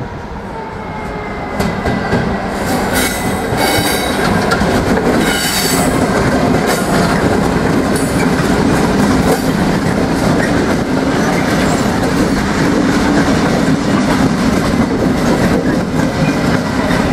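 A convoy of Class 66 diesel-electric freight locomotives passing at close range, their two-stroke V12 diesel engines running. The wheels clack steadily over the rail joints, with squeals from the wheels about three and five and a half seconds in. The sound grows louder about a second and a half in as the locomotives draw level.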